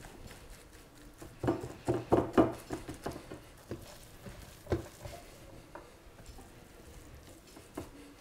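Hands dropping and pressing shredded pork hock into a glass terrine dish lined with cling film: soft patting and rustling, with a cluster of light knocks about one and a half to two and a half seconds in and one more near five seconds.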